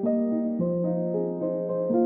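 Soft background piano music: slow, held chords with new notes coming in about every half second.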